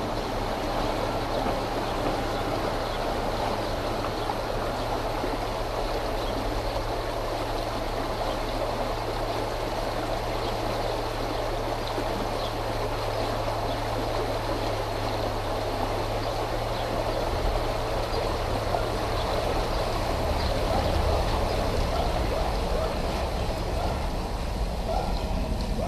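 A small shallow stream rushing steadily over stones. Under it runs a low steady hum that turns to an uneven low rumble about two-thirds of the way through.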